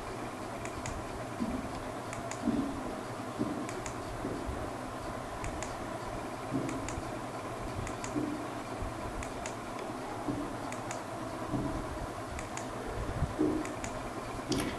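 Clicks of a computer key or mouse button, each a quick click-clack pair, every second or two, as presentation slides are advanced; a steady low room hiss underneath.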